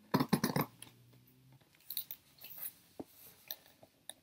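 Packing tape being peeled off a cardboard shipping box: a quick crackling tear right at the start, then scattered crackles and rustles of tape and cardboard and a few light clicks.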